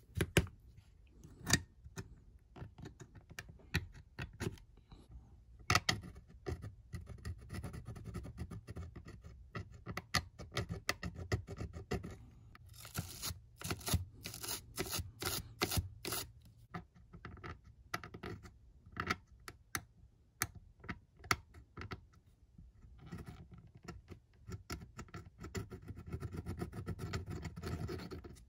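Scratching and scraping at a corroded metal battery contact in a calculator's battery compartment, abrading the corrosion off. It comes as irregular scratchy strokes with small clicks, busiest about halfway through and again near the end.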